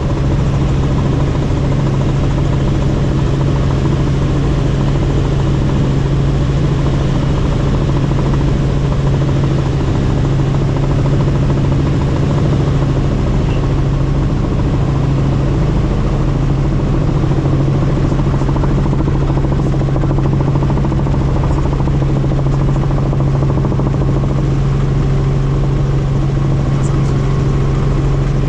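Helicopter in flight: a loud, steady drone of engine and rotor with a strong low hum that holds unchanged throughout.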